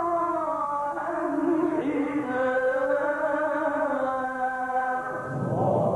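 Solo male voice chanting Quranic recitation in the slow, melodic mujawwad style, holding long ornamented notes; a new phrase begins near the end.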